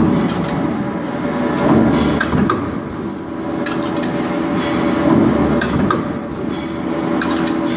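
Manual press machines in a factory running, with a steady machine hum and repeated sharp clacks of the press strokes every second or so.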